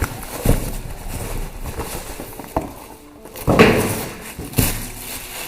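A shoe box and its packaging being handled: a few light knocks and a short burst of rustling about three and a half seconds in.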